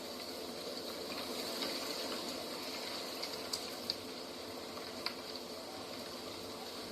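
Steady rushing of running water with a grainy, bubbling texture, and a few faint ticks in the second half.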